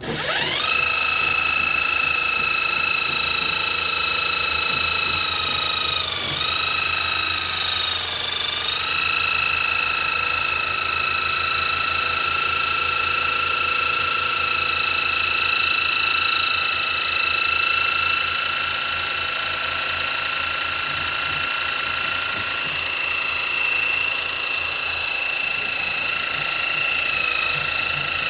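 A small electric motor, like a power tool's, starting up and whining at a steady high pitch, dipping briefly twice as if under load.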